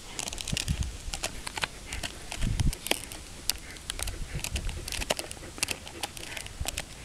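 German Shepherd gnawing on a hard chew bone, irregular crunching and clicking of teeth on the bone, with a few dull low thumps mixed in.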